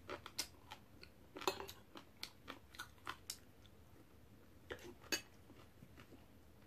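Eating sounds of someone taking red bean porridge with a spoon: a scattering of short, faint clicks and smacks from the spoon and mouth over the first three seconds, then a few more about five seconds in.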